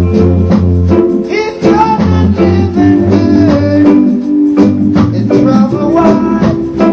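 Reggae music with guitar, playing loudly as a soundtrack.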